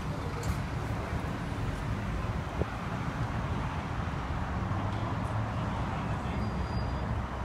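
Diesel bus engine idling with a steady low rumble, mixed with wind buffeting the microphone.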